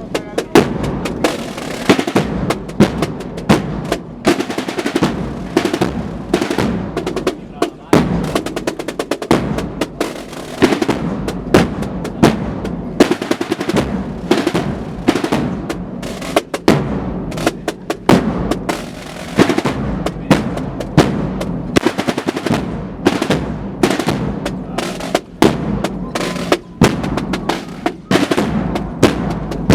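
Percussion section of a Spanish cofradía marching band playing a march: snare drums beating rapid rolls, broken by loud accented strikes.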